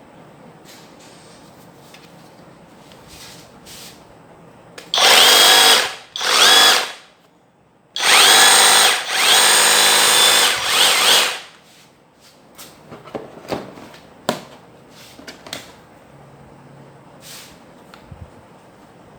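Electric drill run in bursts: two short trigger pulls about five seconds in, then a longer run of about three seconds, the motor rising in pitch as it spins up each time. Light clicks and knocks follow.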